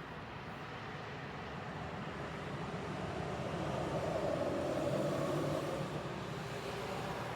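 A vehicle passing by over a steady outdoor rumble, its sound swelling about three seconds in, peaking, then fading away.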